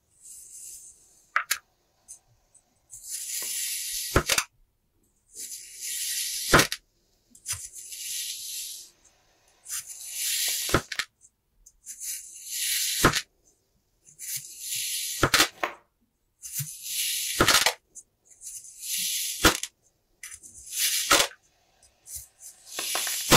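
A knife slicing through a packed block of kinetic sand, about nine cuts roughly two seconds apart: each is a gritty hiss as the blade draws down through the sand, ending in a sharp tap as it meets the table.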